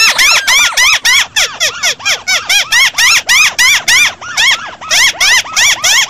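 Crakes, white-browed crakes by the look of them, calling excitedly: a fast, unbroken chatter of rising-and-falling notes, about five a second, with overlapping series as from several birds at once.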